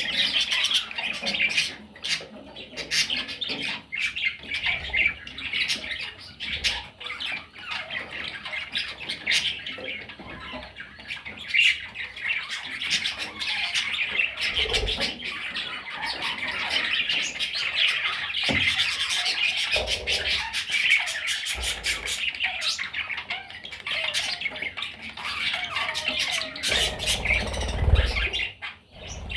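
A flock of budgerigars chattering and squawking continuously, with many sharp chirps and clicks. A few low thumps come through, heaviest near the end.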